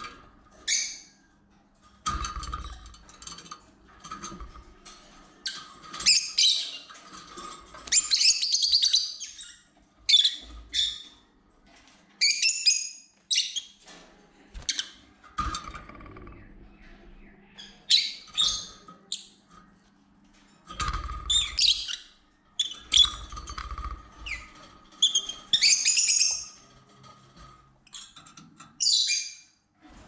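Lovebirds calling: many short, sharp, high-pitched chirps and shrill screeches in quick bursts, with a few dull low thuds between them.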